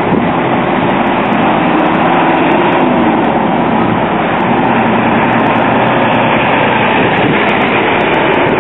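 Steady street traffic noise: motor vehicles running across a cobblestone square.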